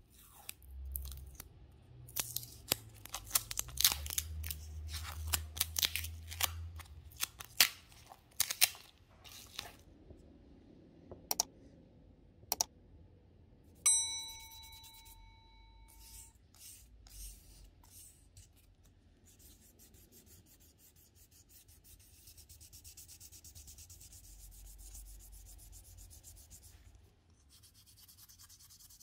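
Hand sanding and scraping of an eyeglass frame's temple and hinge: a run of sharp scratchy clicks and rubs in the first ten seconds, then a faint steady rasp of sandpaper strokes in the last third. Partway through, a single bell-like chime rings and fades over a couple of seconds.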